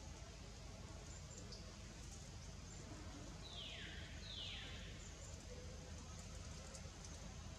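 Two short animal calls, one right after the other about halfway through, each falling in pitch, over a faint steady forest background.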